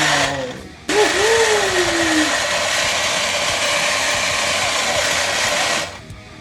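A battery-powered toy gun's motor running with a loud whirring hiss and a steady high whine. It stops briefly within the first second, then starts again and runs for about five seconds before cutting off.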